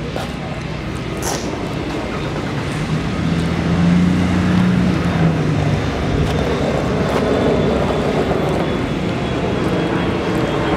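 Steady outdoor street noise with a low motor hum that swells from about two to six seconds in.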